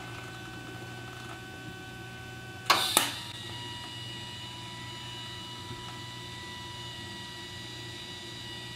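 TIG welding arc struck on mild steel square tubing: a sharp double crackle about three seconds in as the arc starts, then a steady arc hum with thin high whining tones over the low hum of the welder.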